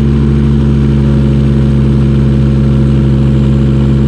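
Kubota D722 three-cylinder diesel of a 1.2-ton mini excavator running steadily at full throttle, driving the hydraulics through a boom lift against an anchored load.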